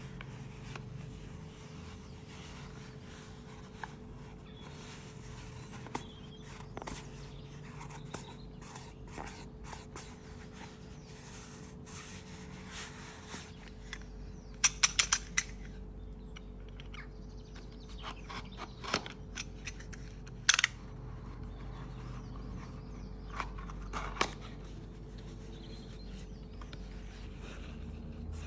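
Gloved hands handling and opening cardboard perfume boxes: scattered light taps and scrapes over a faint steady hum. About halfway through comes a quick run of loud sharp clicks from a snap-off utility knife as its blade is slid out, followed by a few more single sharp clicks as the box is cut and opened.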